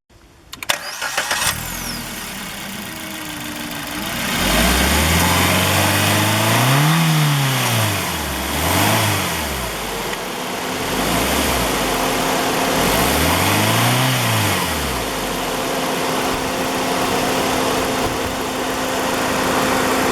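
Maruti Suzuki Baleno petrol engine being started: a short burst of cranking clicks, then the engine catches and runs. It is revved up and back down three times, then settles to a steady idle.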